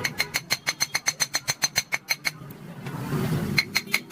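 Fast run of sharp, ringing metallic clicks, about eight a second, breaking off about halfway and starting again near the end.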